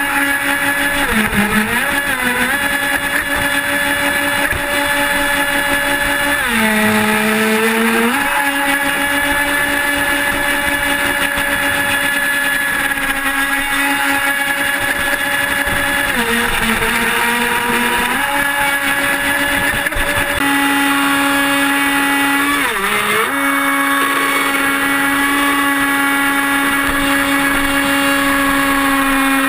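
Pro Boat radio-controlled speedboat's motor running at high speed with a steady whine over the rush of water; its pitch dips briefly and recovers several times.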